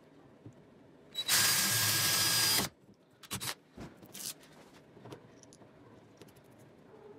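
Cordless drill running for about a second and a half as it bores a hole through a clear plastic panel, with a faint motor whine. A few short clicks and scrapes follow as the panel is handled.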